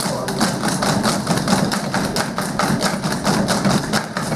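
A group of children playing wooden drumsticks on rubber drum practice pads: a fast, uneven stream of sharp taps several a second, the players not quite in unison.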